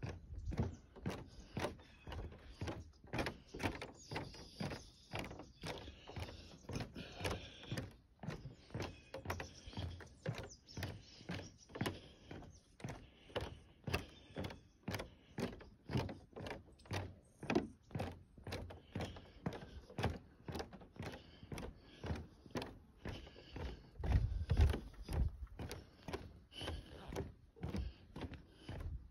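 Footsteps on the planks of a wooden boardwalk, a steady walking pace of about two dull thuds a second.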